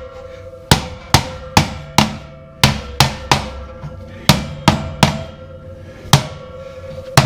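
Wheel cap being knocked onto a car wheel: sharp metallic strikes with a short ring, mostly in quick runs of two or three, over a steady hum.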